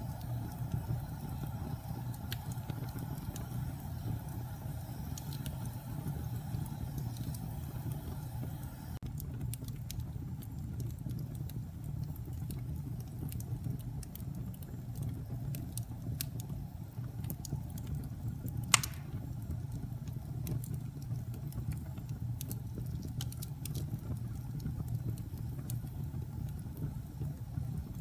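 Wood fire burning in a fireplace: a steady low rumble with scattered crackles and one sharp, loud pop about two-thirds of the way through.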